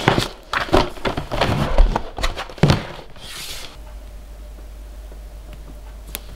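Stiff panels and sheets of a folding photo light box being handled and unfolded on a wooden floor: rustling, clatter and several sharp knocks. After about three and a half seconds it drops to quiet room tone with a faint hum and a single small click near the end.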